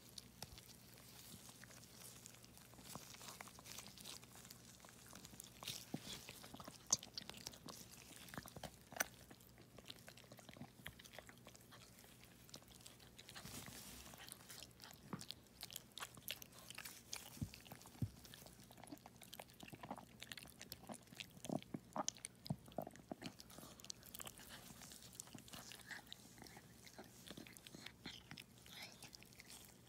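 Faint, irregular wet clicks, smacks and crackles as a newborn Yorkshire terrier puppy is freed from its birth sac and cleaned, over a faint steady low hum.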